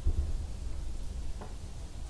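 Wind buffeting the microphone: a low rumble, strongest in a short gust right at the start.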